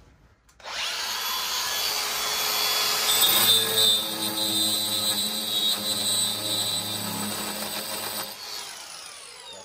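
Cordless drill spinning an abrasive bit against the cut edge of a quartz countertop, grinding it clean and smooth. It starts about half a second in, runs steadily for about eight seconds, then stops and winds down with a falling whine.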